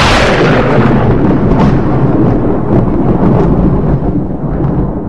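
Thunder sound effect: a thunderclap rolling on as a long, loud rumble with scattered crackles, slowly fading near the end.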